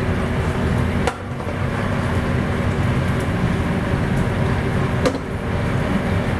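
Steady mechanical hum and whir, with two sharp clicks about a second in and about five seconds in.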